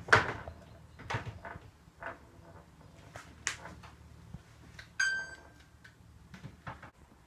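Knocks and clinks of jars, bottles and containers being handled in an open refrigerator, a loud one at the start and several more spaced out after it. About five seconds in comes a brief high tone lasting about half a second.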